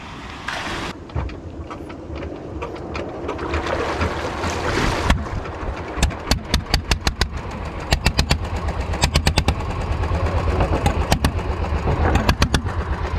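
Small wooden fishing boat's engine running as the boat moves off: a steady low drone, with runs of sharp clattering ticks over it from about six seconds in.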